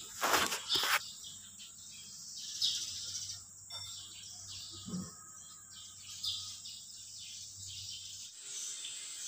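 Several sharp knocks in the first second, then crickets and birds chirping in the background over a faint low hum that stops about eight seconds in.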